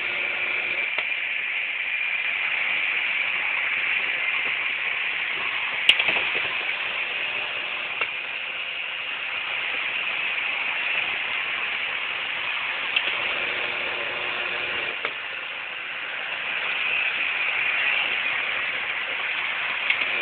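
Model train running on its layout track: a steady whirring clatter of wheels and motor, with a sharp click about six seconds in.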